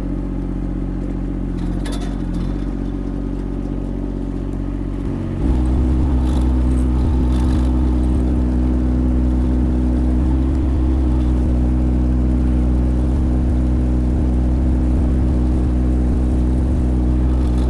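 Kymron XH20d mini excavator's diesel engine running steadily. About five seconds in it steps up to a louder, deeper note and holds there.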